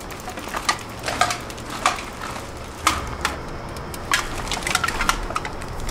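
Black plastic garbage bags crinkling and rustling as belongings are handled and packed, with irregular sharp crackles and a few louder knocks.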